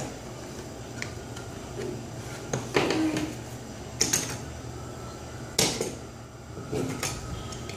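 Wax crayons being handled, clicking against each other and tapping on the tabletop in a few scattered light knocks.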